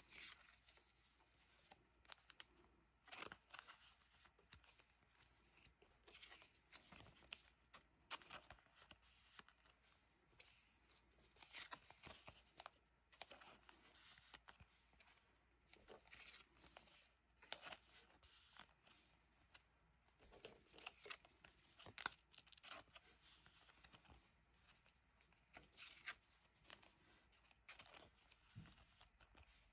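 Pokémon trading cards being handled and slid into thin clear plastic sleeves: faint, short rustles and scrapes of card and plastic every second or so.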